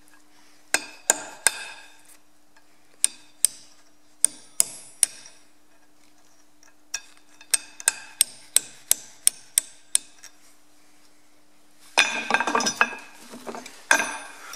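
Small hammer lightly tapping a steel punch in a threaded hole of a tractor axle hub flange, in short runs of sharp metallic taps about two or three a second, then a brief flurry of rapid clinking near the end. The punch is knocking the leftover thread shell of a drilled-out brake drum retaining bolt out of the hole.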